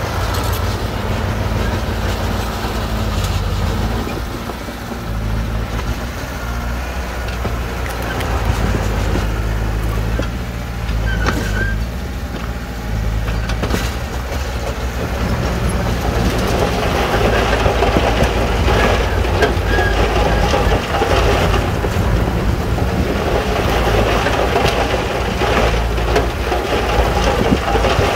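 Crawler bulldozer's diesel engine running with a steady low drone as it pushes rock fill. About halfway through, a louder scraping and rattling of blade and tracks working the rock joins in.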